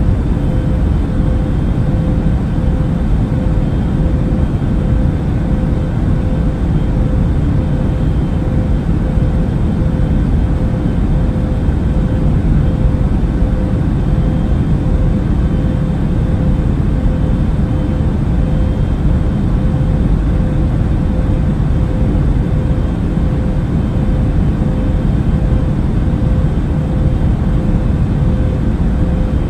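Airliner cabin noise in flight: a steady low rumble and rush of jet engines and airflow, with a faint steady hum held above it.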